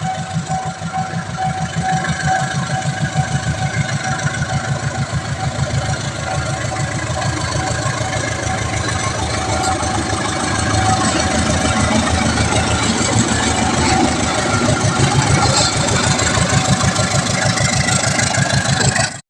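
A large engine running steadily with a fast, even throbbing, growing somewhat louder about halfway through.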